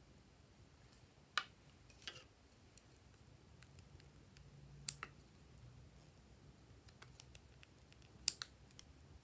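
Small scissors snipping slices off a stick of lip balm: about four sharp clicks spaced a second or more apart, the loudest near the end.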